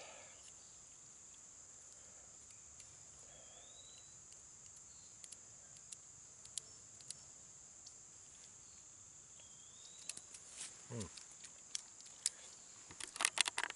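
Steady high-pitched drone of insects in the woods. Against it come small scattered clicks and rustles of fingers picking at cracked roasted hickory nut shells, busier near the end. A short rising whistle repeats every five seconds or so.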